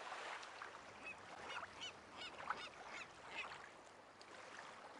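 Faint birds calling, a series of short repeated squawks, most of them between about one and three and a half seconds in, over a steady hiss.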